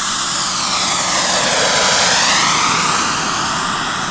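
Small gas-turbine engine and rotor of a large radio-controlled SA 315B Lama scale helicopter flying past low. A steady high turbine whine that drifts slightly down sits over a rushing rotor noise, with a sweeping swish about halfway through; it begins to fade near the end as the model moves away.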